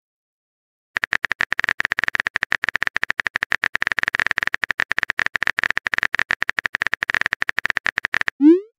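Texting-app keyboard typing sound effect: a rapid, even run of clicks from about a second in until near the end, then a short rising swoop as the message pops up.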